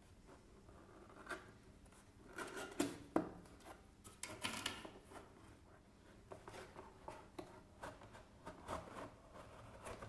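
A cardboard box being opened and a white plastic chip-maker tray slid out of it: faint rubbing and scraping of cardboard, with scattered light clicks and knocks of plastic.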